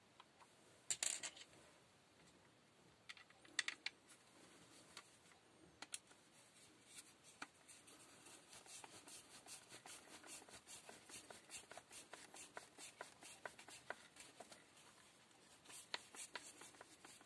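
Hand screwdriver turning a screw into the plastic housing of a cordless drill: faint, quick ticking and scraping that runs through the second half. A few louder clicks from handling the plastic drill body come in the first four seconds.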